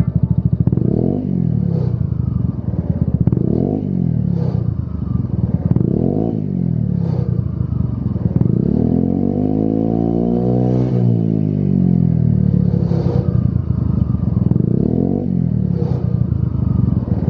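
Peugeot Speedfight 125 scooter's single-cylinder engine running through a Lextek RP1 aftermarket silencer, stationary, revved again and again with quick throttle blips that rise and fall back to idle. About halfway through it is held in one longer, slower rev up and down.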